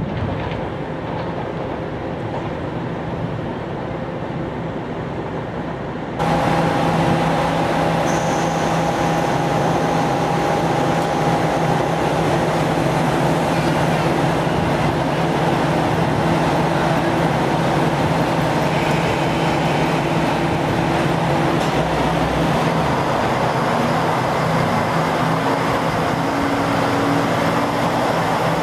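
JR Kyushu KiHa 47 diesel railcar's engine running as the train creeps into the platform: a steady drone with a held tone. It starts suddenly about six seconds in, after quieter distant train noise.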